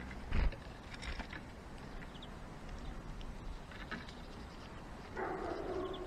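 Birds at a wooden seed-tray feeder: a thump about half a second in, scattered light taps and faint short high chirps, and a brief rush of rustling noise near the end.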